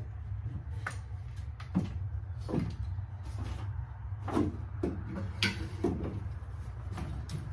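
Irregular knocks and clatter of fishing gear being moved about in a pickup truck bed, over a steady low hum.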